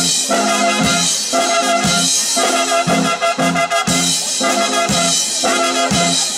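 Small amateur jazz band of saxophones, trumpets and drums striking up a medley of Japanese period-drama (jidaigeki) TV themes. The horns play a short punchy phrase that repeats about once a second over the drum beat.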